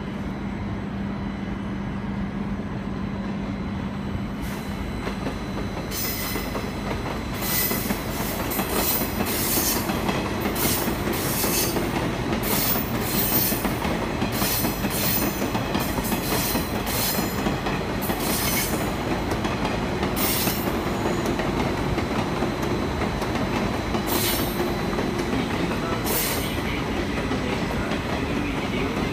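Electric train running on the tracks, with steady rolling rumble. From about six seconds in, its wheels click and clatter over rail joints and points, with squeals.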